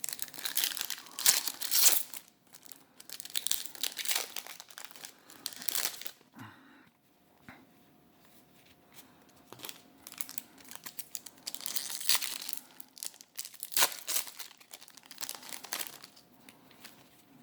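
Crinkly packaging from a trading-card unboxing being handled, rustling in irregular bursts with a quieter lull around the middle.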